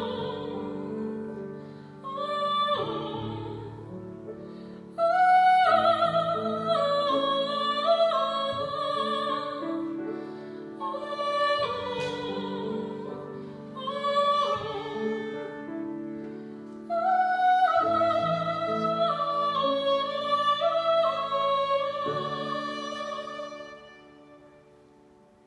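A woman singing a Yiddish song in a classical style, with fiddle and piano accompaniment; her long held notes waver with vibrato. The music dies away near the end as the song closes.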